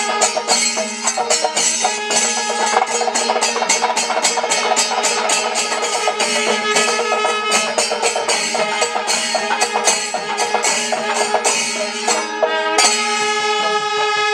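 Percussion-led festival music: fast, even strokes of drums and cymbals over steady held tones, with a brief break in the strokes near the end.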